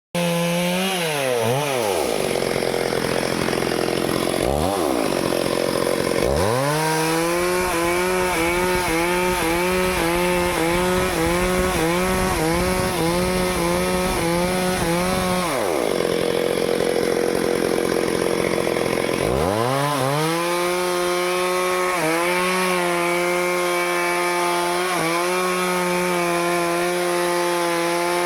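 Stihl two-stroke chainsaw cutting teak wood. The engine drops to a low speed, revs up about six seconds in and holds at full speed with small regular dips, falls back near the middle, then revs up again and runs at full speed with a few brief dips.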